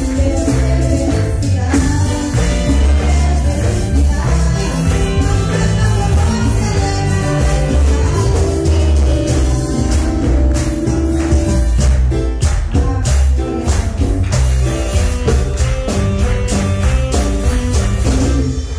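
Live church worship music: singing over a band with a strong bass line and tambourine keeping a steady beat, stopping near the end.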